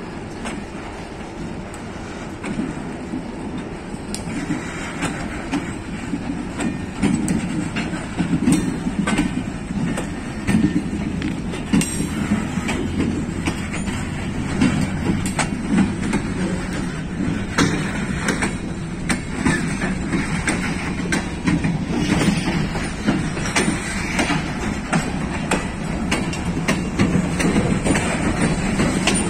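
Diesel switcher locomotive hauling a cut of freight cars slowly past. The rolling wheels give a steady low rumble with repeated clicking over rail joints, growing louder a few seconds in.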